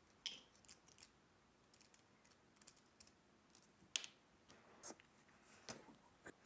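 Scattered light clicks and ticks of small tools and screws being handled on a desk while a camera zoom lens is taken apart, with one sharper click about four seconds in.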